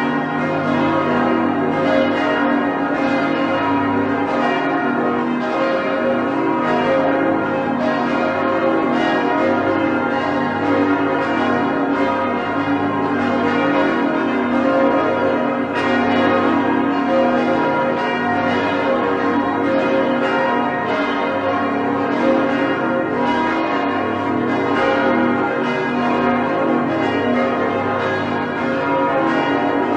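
Swinging church bells pealing: repeated strokes about once a second, each ringing on and overlapping the next in a continuous clang of many tones.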